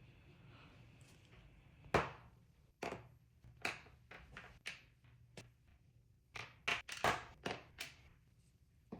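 Short, sharp clicks and knocks of 3D-printed plastic pistol parts being handled and fitted together, about a dozen, starting about two seconds in and coming closer together near the end.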